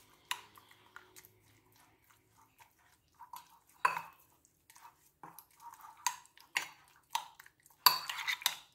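A metal spoon stirring raw chicken pieces in an egg-and-spice marinade, knocking and scraping against the bowl in irregular clinks. The loudest clinks come together near the end.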